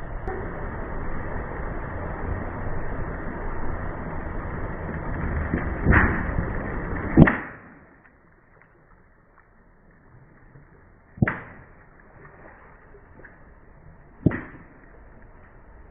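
Steady car and tyre noise, then sharp cracks as objects are crushed under the car's wheels: two close together, the loudest about seven seconds in, after which it goes quieter and two more single cracks follow several seconds apart.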